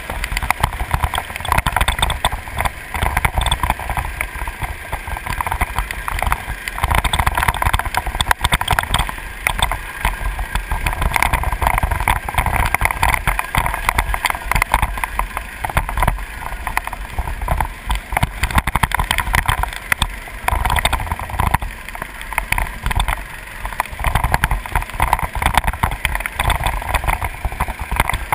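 Go-kart engine running at speed, heard from a camera mounted on the kart, with wind buffeting the microphone; the sound swells and dips through the lap.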